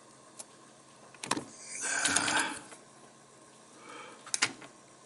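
Small lighter parts being handled: a few sharp clicks, then a scraping rub lasting about a second, then two more clicks, as an O-ring is worked onto a butane lighter.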